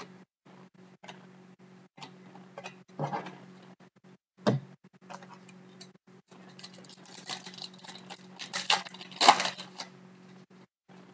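Trading cards being handled, with scattered light clicks and taps as cards are flicked and set down; then a card pack's wrapper crinkling and tearing open from about six and a half seconds in, loudest near the end.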